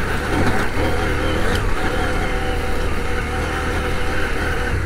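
CF Moto 800MT Touring's parallel-twin engine running at a steady, moderate pace as the bike rides a rough dirt track, with a brief sharp knock about a second and a half in.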